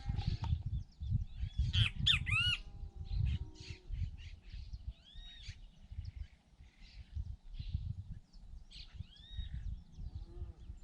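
Birds calling with short, arching chirps and squawks in a few separate clusters, over a steady low rumble of wind on the microphone.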